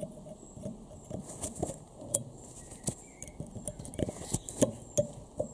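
Needle-nose pliers clicking and scraping on metal as a torn-out remnant of drilled stud thread is worked out of its hole: irregular small metallic clicks and taps, a few sharper ones near the end.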